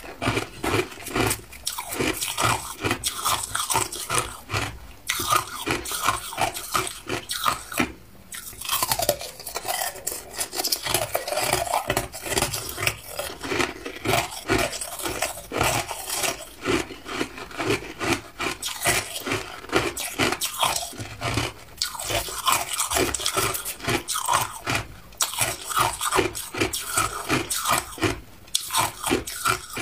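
Crushed ice being chewed and crunched between the teeth: rapid, closely spaced crunches with a few short pauses.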